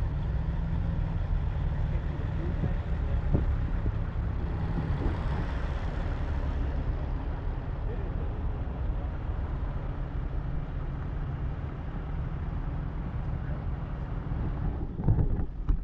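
Idling diesel semi trucks: a steady low rumble.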